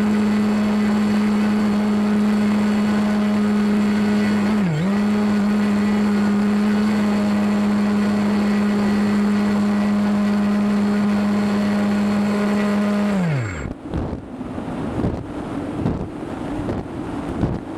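RC plane's motor and propeller running at a steady pitch heard from on board, dipping briefly about five seconds in. About 13 seconds in the motor spools down and stops, and the plane glides with only gusty wind on the microphone.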